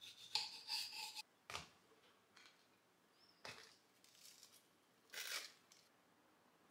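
Faint kitchen food-prep sounds: a knife slicing a tomato on a marble cutting board, a couple of light taps, and a short scrape of a knife spreading cream cheese on a toasted bagel near the end.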